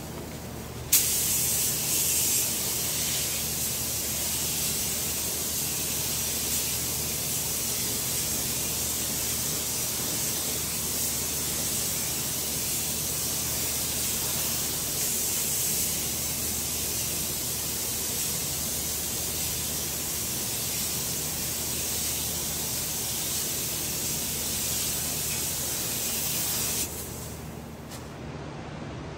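Air-powered gravity-feed paint spray gun spraying automotive paint onto a plastic bumper: a steady hiss of air and atomised paint that starts abruptly about a second in and cuts off a couple of seconds before the end, with a steady low hum underneath.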